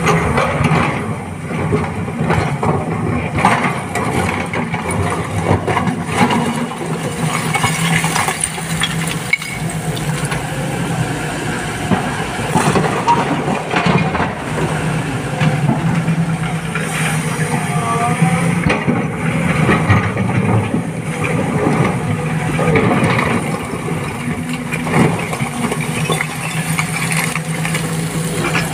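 Heavy diesel engine running steadily, with many short knocks and clatters over it.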